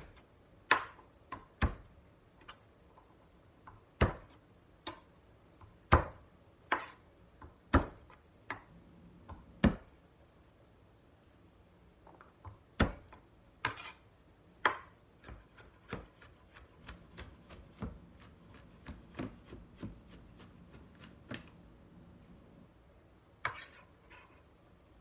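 Kitchen knife chopping garlic on a cutting board: sharp irregular knocks about once a second at first, then quicker, lighter taps in the second half.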